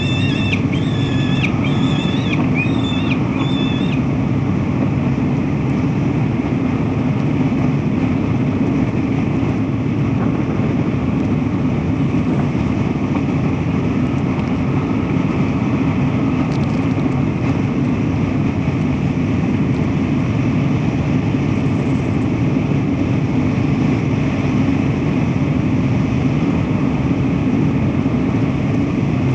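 Steady low rumble of city rooftop background noise. A bird gives a quick run of short, high, repeated calls over the first few seconds.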